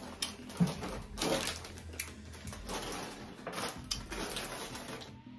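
Snack packets crinkling and a cardboard box being handled as someone rummages through a box of snacks, with scattered light knocks and clicks.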